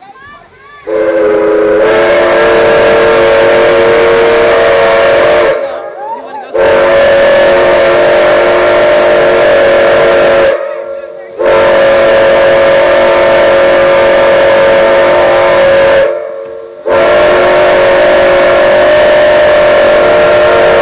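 Chime steam whistle of a Durango & Silverton narrow-gauge steam locomotive sounding four long blasts, each a steady chord of several tones lasting about four to five seconds with short breaks between. The first blast starts slightly lower in pitch as the whistle opens, then settles.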